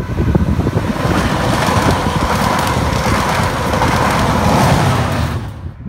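A Class 67 diesel locomotive propelling a rake of coaches with a driving van trailer, passing close by, with a loud steady rush of wheels on rail and engine noise. It cuts off abruptly near the end.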